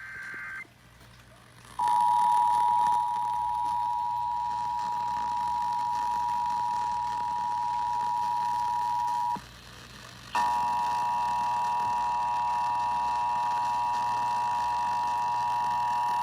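Emergency Alert System tones: the tail of a warbling SAME data burst at the very start, then the two-tone EAS attention signal held steadily for about seven and a half seconds. It breaks off for about a second, then a second attention tone starts, this one with several extra tones stacked in, and holds steady.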